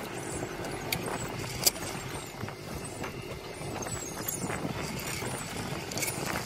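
Steady running noise of a small fishing boat at sea, with a few sharp knocks, the loudest just under two seconds in.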